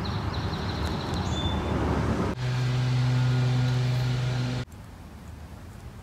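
Outdoor background noise, then a loud, steady low motor hum that starts abruptly about two seconds in and cuts off abruptly about two seconds later. Faint high chirps are heard in the first second or so.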